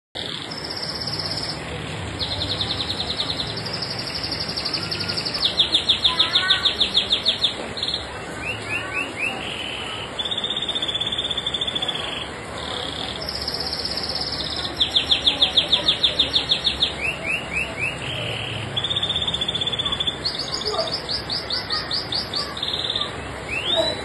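Domestic canary singing a long, unbroken song, passing from one phrase to the next: rapid trills and rolls of fast repeated notes, held buzzy tours and a few sliding notes.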